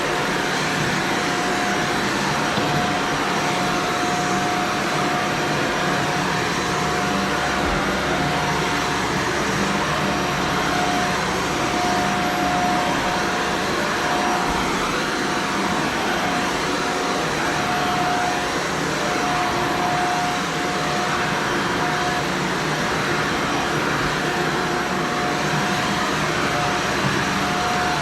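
Shark Vertex upright vacuum cleaner running steadily over carpet, its motor giving a steady whine.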